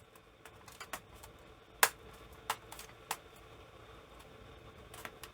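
Scattered sharp clicks of laptop keyboard keys and plastic as a replacement Lenovo E14 Gen 1 keyboard is pressed down into the top case to seat it properly. The loudest click comes about two seconds in.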